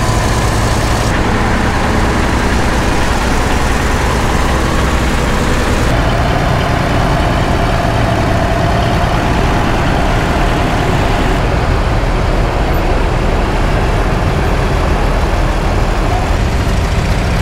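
Large farm tractor engines running steadily as the machines drive close by. The sound changes abruptly about one, six and eleven seconds in.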